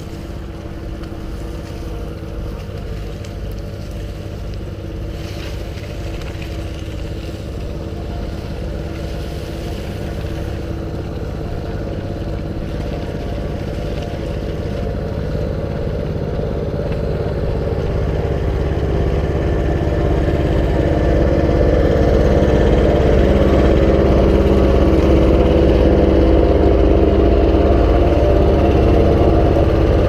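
Nova GTS1500 wood chipper's gas engine running steadily at a constant speed, growing louder over the second half.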